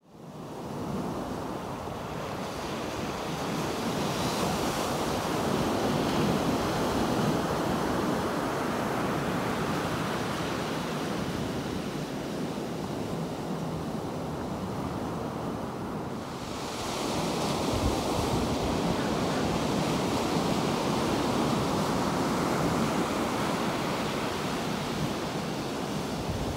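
Pacific Ocean surf breaking and washing onto the shore, a steady rushing noise that fades in at the start and grows louder and brighter about two-thirds of the way through.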